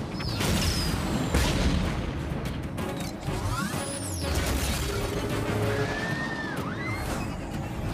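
Action-film soundtrack mix: music under repeated crashes and booms, with whooshing effects that sweep up and down in pitch.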